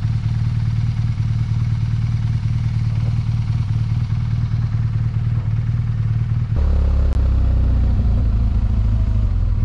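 BMW R1200GS boxer-twin engine idling steadily. About two-thirds of the way through it changes abruptly to the bike being ridden slowly, its engine note deeper and louder.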